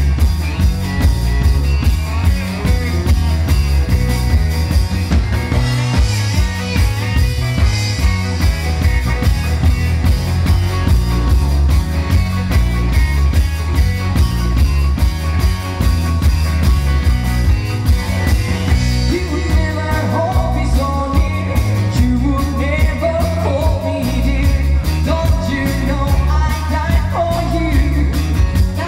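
Live dansband music: drum kit, keyboards and guitar playing a steady dance beat, with a woman's lead vocal coming in about two-thirds of the way through.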